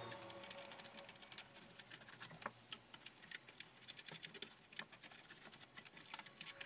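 Faint, irregular small clicks and ticks from the plastic gears and encoder disc of an Epson L360 inkjet printer being handled and wiped with a cloth to clean off dust.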